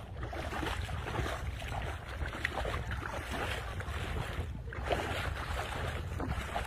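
Wind buffeting the microphone: a steady rushing with a choppy low rumble.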